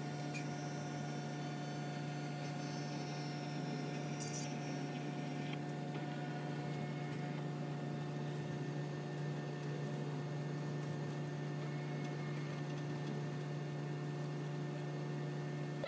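Petree automatic self-cleaning litter box's drum motor running with a steady low hum as the drum rotates through its cleaning cycle.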